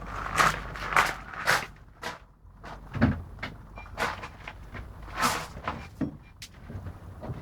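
A string of knocks and clatters, like a car door being opened and shut and someone settling into the car, with several sharp louder thumps spread through it.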